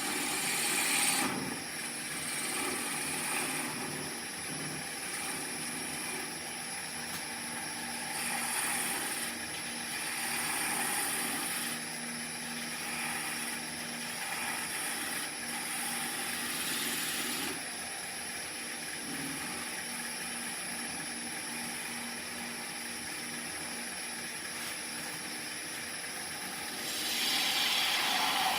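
Oneway 2436 wood lathe running with a steady hum while a turning tool cuts down a spinning green-wood spindle, the shaving noise swelling and easing as the cuts come and go and growing louder near the end.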